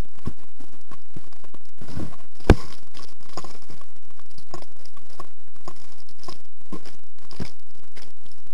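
Footsteps crunching on gravel and asphalt at a walking pace, with gear rustling and one sharper knock about two and a half seconds in.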